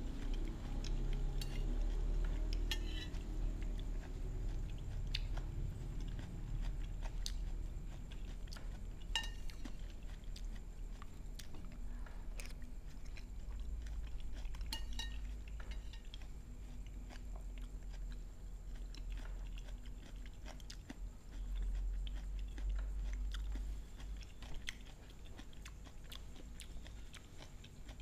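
Metal spoon clinking now and then against a ceramic plate of boiled cucumber slices, with mouth sounds of chewing between the clinks. A steady low rumble runs underneath.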